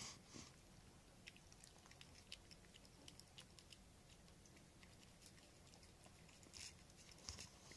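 Faint, irregular wet clicks of cats licking a Churu paste treat from a spoon, a few closer together near the end.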